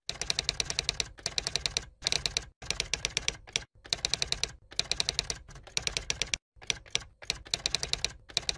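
Typewriter sound effect: rapid key strikes clacking about ten a second, in short runs broken by brief pauses, as the text is typed onto the screen.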